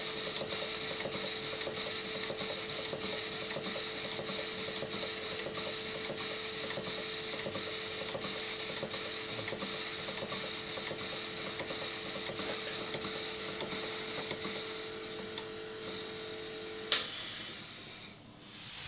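Model Southworth steam pump running on compressed air: its valve gear and pistons click in a regular beat over a steady hiss of air. The running fades and stops near the end.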